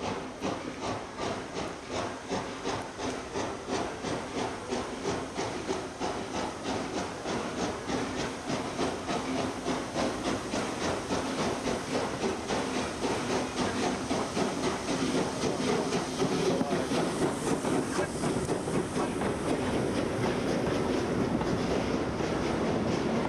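Steam locomotive pulling a passenger train out of the station, its exhaust chuffing in a steady rhythm that grows louder as it comes closer. Near the end the coaches roll past close by, with steam hiss and wheels clicking over the rail joints.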